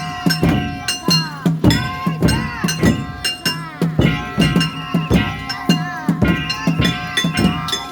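Festival hayashi: taiko drums and clanging metal gongs struck in a fast, steady rhythm, the gongs ringing on between strokes.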